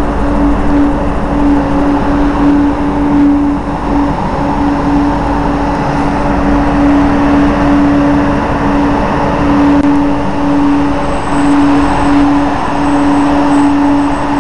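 TGV Atlantique high-speed trainset rolling slowly into the station past the platform: a loud, steady rumble with a constant humming tone.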